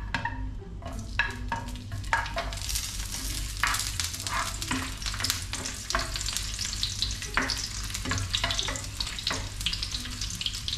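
Crushed garlic cloves sizzling and crackling in hot oil in a non-stick frying pan, with a spatula scraping and tapping against the pan as they are stirred. The sizzle builds up a couple of seconds in and keeps going.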